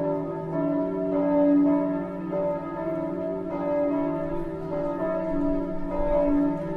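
Church bells ringing, several notes overlapping and ringing on.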